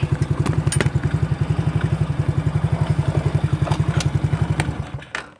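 Single-cylinder engine of a 125cc ATV idling with a steady, fast pulse and some light clicking. It dies away shortly before the end as the engine is shut off.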